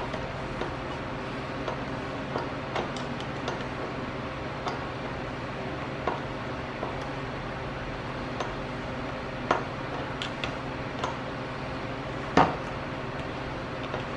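Scattered light clicks and clinks of hand work on intake hoses, clamps and fittings in a car's engine bay, over a steady low hum. A sharper knock stands out near the end.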